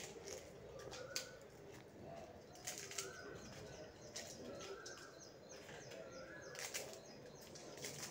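Crisp deep-fried chapati crackling and snapping as fingers break it into small pieces: a few sharp cracks over faint rustling.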